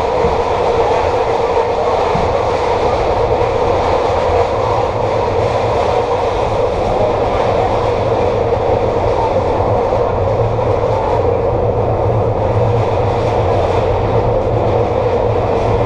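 SEPTA Kawasaki K-Car light rail vehicle running along the rails: a loud, steady rumble of wheels on track and running gear, without pause.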